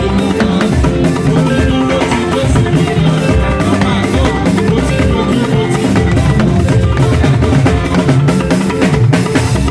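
Music with a drum kit, bass drum and percussion playing a dense, continuous beat over sustained pitched instruments.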